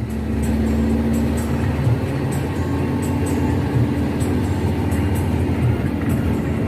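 Intercity bus's diesel engine running under way, with a steady low drone and road noise heard from inside the cabin and light clicking rattles now and then.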